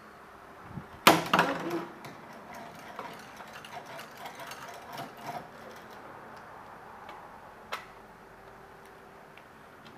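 Plastic parts of a ring light and its tripod stand being handled and fitted together by hand: small clicks and rattles, with a louder burst about a second in and a single sharp click near the end.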